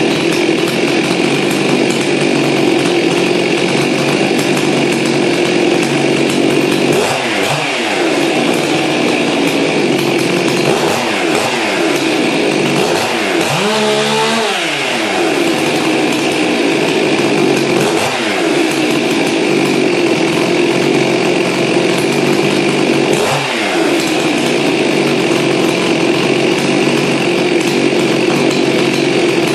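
Two-stroke chainsaw engine running steadily at high speed, its tone shifting slightly every few seconds.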